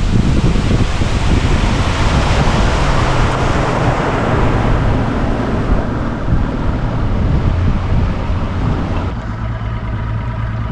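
Outboard-powered fishing boat running under way, with a steady engine hum under heavy wind rush on the microphone and water noise. About nine seconds in the rushing drops off, leaving a steadier engine hum.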